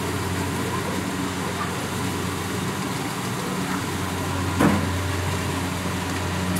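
Kubota DC-70 Plus combine harvester's diesel engine running at a steady drone while harvesting rice, with one brief knock about four and a half seconds in.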